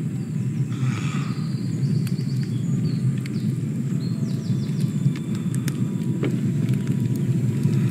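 A steady low rumble, with faint scattered high clicks and chirps above it.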